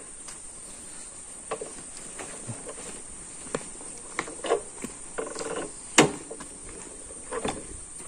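Insects droning in a steady high tone, with scattered light clicks and knocks. The loudest is a sharp click about six seconds in.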